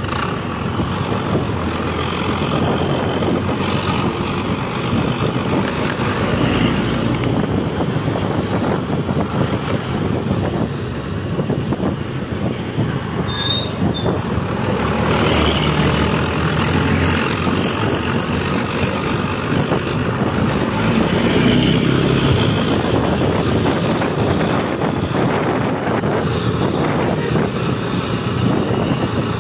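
Bus diesel engine and exhaust running at speed on the road, mixed with tyre and road noise, the level swelling and easing slightly.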